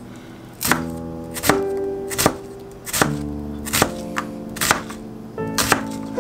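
Chef's knife slicing through an onion onto a plastic cutting board: separate knocks about a second apart, coming quicker near the end, over background music.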